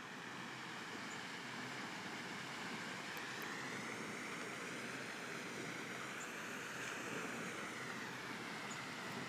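Steady rushing outdoor ambience with no distinct events.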